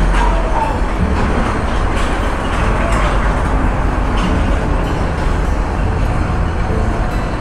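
Heavy truck engines running with a loud, deep, steady rumble that swells slightly now and then, over general street noise.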